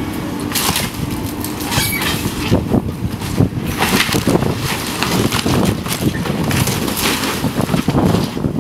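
Building demolition: a heavy machine's engine rumbles steadily under irregular cracking and crunching of the structure and debris being torn down.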